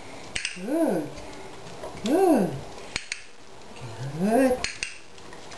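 A person's voice making short calls that rise and fall in pitch, about one every one and a half seconds, four in all. Sharp clicks fall between them.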